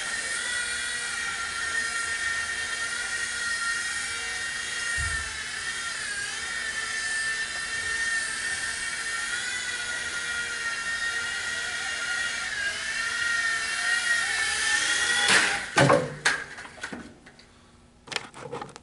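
WL-Toys V911 micro RC helicopter in flight: a steady high-pitched motor and rotor whine that dips and rises slightly in pitch. About fifteen seconds in comes a quick clatter of knocks, and the whine stops, leaving a few faint clicks near the end.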